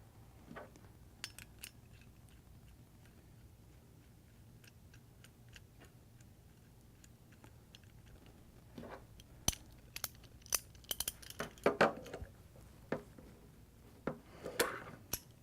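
Small metal parts of an airless spray gun clicking and clinking as they are handled and fitted together: only a few faint ticks in the first half, then a busier run of sharp clicks in the second half.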